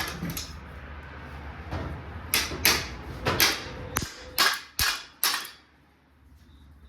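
About seven sharp knocks on metal in quick succession, one leaving a brief ring, then the sound dies away to a low hum.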